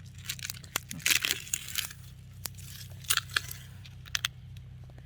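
Soil being dug through and scraped by hand in a potato box: irregular crunching and scraping bursts with sharp clicks, loudest about a second in and again about three seconds in.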